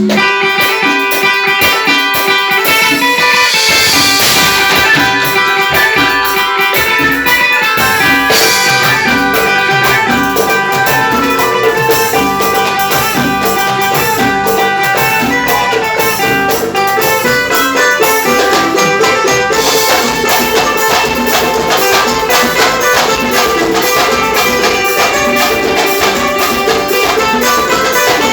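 Reisado folk group playing live instrumental music, guitar over drums with a steady beat, during a sound check.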